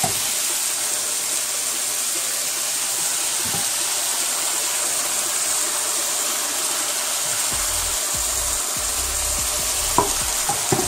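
Chicken pieces frying in a pan with a steady sizzling hiss as hot water is poured in from a saucepan. A single knock of the wooden spatula near the end.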